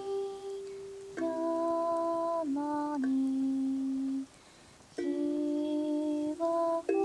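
A woman humming a slow melody in long held notes, with kalimba plucks under it. The sound drops away briefly just past the middle before the next phrase.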